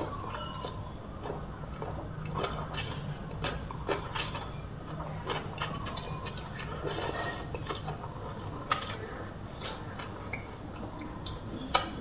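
Close-up eating sounds: rice vermicelli noodles slurped and chewed, with a fork clinking and scraping on the plate in many short sharp ticks.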